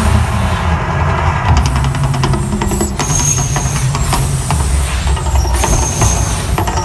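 Mirage volcano attraction erupting: a deep, steady rumble with scattered crackles and a hiss over it.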